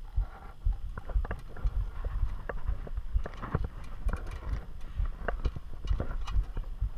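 Irregular metallic knocks and clinks, several a second, of boots, crampons and gloved hands against an aluminium ladder's rungs and rails as a climber climbs it, over low dull thumps.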